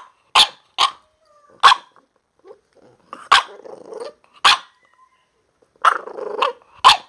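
English bulldog puppy barking in short sharp single barks, about six in all, with low growls in between. It is a puppy's protest, which the owner calls a little hissy fit.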